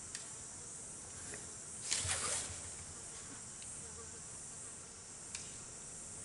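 A clear plastic ruler scraping briefly across drawing paper about two seconds in as it is repositioned, over a steady faint hiss, with a couple of light clicks.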